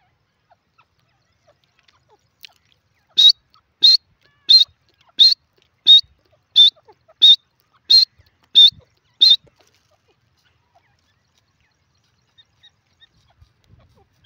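Grey francolin calling: a series of about ten short, loud, high-pitched calls, evenly spaced at roughly three every two seconds, beginning about three seconds in and ending about six seconds later.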